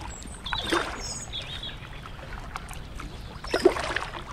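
Kayak paddle blades dipping into still canal water: two strokes about three seconds apart, the second the louder. A few short high chirps sound between half a second and a second and a half in.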